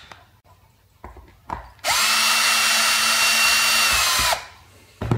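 Cordless drill-driver backing a screw out of the metal housing: it whines at a steady speed for about two and a half seconds, then winds down. It is preceded by a few light knocks of the bit settling on the screw head.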